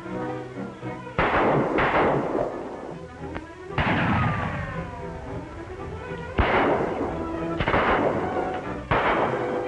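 Six echoing gunshots in a movie gunfight, coming singly and in pairs over background music, with a falling whine after the shot about four seconds in.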